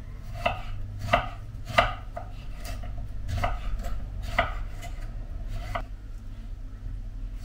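Kitchen knife slicing a cucumber on a wooden cutting board: about nine separate knocks of the blade on the board, unevenly spaced, over a low steady hum.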